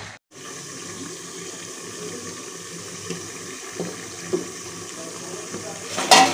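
Chicken and potatoes cooking in a steel kadai over a gas flame, a steady wet sizzle and hiss as the masala is fried down, with a few small clicks and one loud metal clatter near the end.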